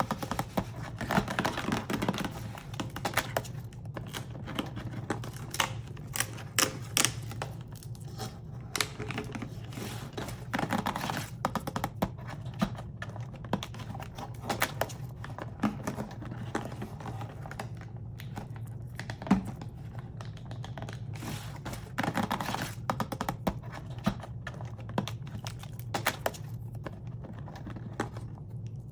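Hands unwrapping small toy packaging from an advent calendar: an irregular stream of crinkling, tearing, taps and clicks, over a steady low hum.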